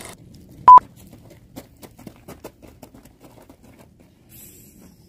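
A short, loud electronic beep of one steady pitch about a second in, followed by scattered light clicks and taps.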